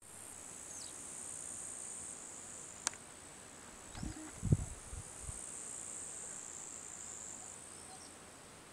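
Crickets chirring steadily at a high pitch. There is a single sharp click about three seconds in and a few low thumps about halfway through.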